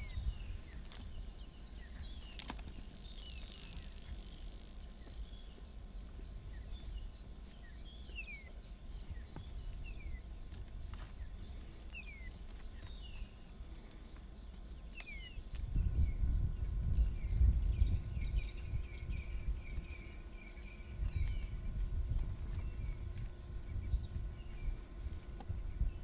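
Insects chirping in a fast, even, pulsing trill, with a bird's short falling whistles every second or two. About sixteen seconds in, the sound changes to a steady high insect drone over a louder, uneven low rumble, with a few chirps.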